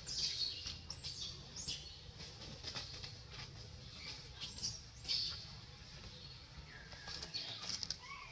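Short, high-pitched chirps, each falling in pitch, coming irregularly. Near the end there are a few lower calls that rise and fall, over a steady low rumble.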